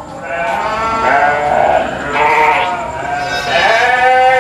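Dorper-cross sheep bleating, several calls following and overlapping one another, the last one long and drawn out.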